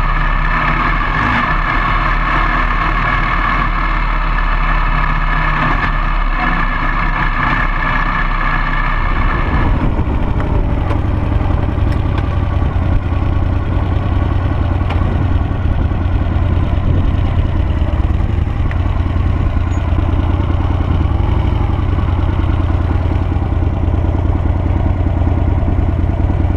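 Harley-Davidson Sportster V-twin engine of a dual-sport motorcycle running steadily. About ten seconds in the sound changes abruptly: the higher tones drop away and it turns deeper.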